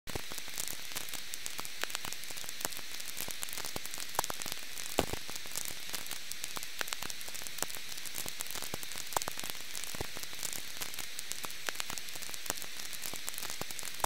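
Simulated vinyl record crackle: a steady hiss with frequent sharp pops and clicks. It was made from a rustled plastic bag, EQ'd and bit-crushed into pops, over EQ'd white noise from a synthesizer.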